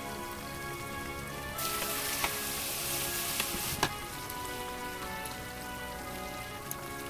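Starch-coated mackerel pieces deep-frying in hot oil, sizzling loudly for about two seconds from about a second and a half in, with a few sharp ticks, then dropping back to a low sizzle.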